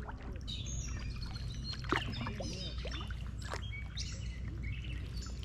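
Songbirds chirping and singing in quick, varied phrases over the low rumble and knocks of a canoe being paddled, with one sharp knock about two seconds in.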